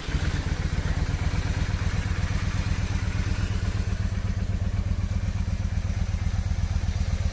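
Yamaha Virago 535's air-cooled V-twin idling steadily on its stock exhaust, with an even, low pulsing beat.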